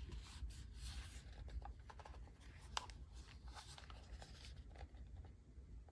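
Faint scattered clicks and short rustles of a small plastic label printer and its label roll being handled, over a low steady hum.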